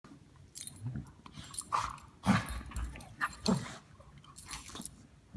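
Two dogs play-fighting, one making gremlin-like noises: a string of short, irregular growly vocal noises, loudest a little over two seconds in.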